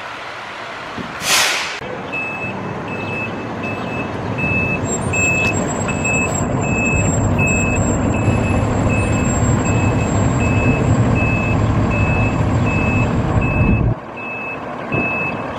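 A short sharp hiss of air from a fire truck's air brakes about a second in. Then the truck's reversing alarm beeps steadily about twice a second over its diesel engine running, with the engine dropping away suddenly near the end while the beeping carries on.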